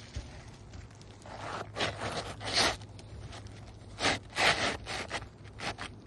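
Asphalt shingles scraping and rubbing in a few short bursts as a shingle is slid back into place under the course above.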